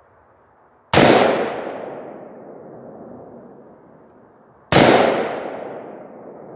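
Two shots from an AR-15 rifle firing .223 steel-case ammunition, about four seconds apart, each ringing out with a long echo that fades over a second or so.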